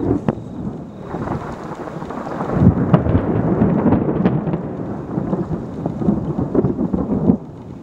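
Thunder rumbling from a severe thunderstorm, swelling about two and a half seconds in and dropping away near the end, with short crackles through it.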